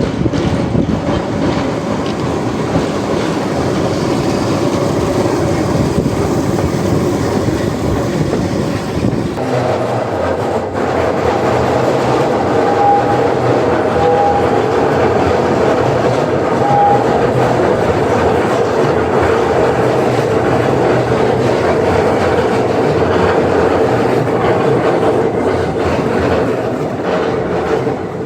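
Keihan Otsu line train running on the rails, a loud steady rumble. About a third of the way in the sound changes to a steadier hum with a held motor tone, and three short high beeps sound in the middle.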